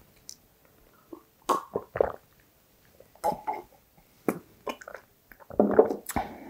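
A person sipping and swallowing a milky drink from a small glass: a few short gulps and mouth sounds. Near the end comes a louder mouth sound, then the click of the glass being set down on a wooden table.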